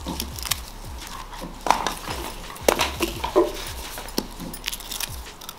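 Irregular light taps, clicks and paper crinkling of handwork: thin glued colour paper being pressed over the open end of a cardboard firework tube to seal it.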